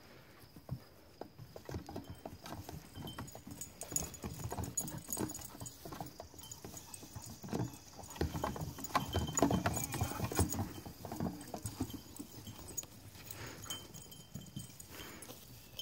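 Small hooves of Alpine and LaMancha goat kids tapping and thudding as they step along stacked rubber tires and a wooden rail, a rapid uneven string of knocks that is busiest a little past halfway through.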